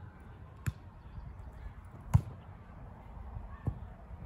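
Volleyball struck by hands during a rally: three separate sharp slaps, the middle one about two seconds in much the loudest, over a steady low rumble.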